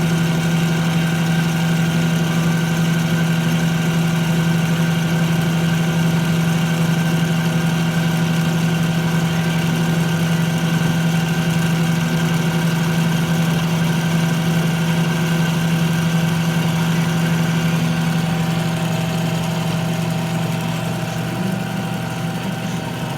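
Metal lathe running steadily, its motor and gear drive giving a steady low hum with higher tones above it. The level eases off slightly near the end.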